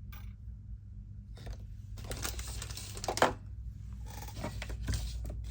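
Light clicks and scraping from small tools and phone parts being handled during an iPhone repair, with a sharp click a little after three seconds in, over a steady low hum.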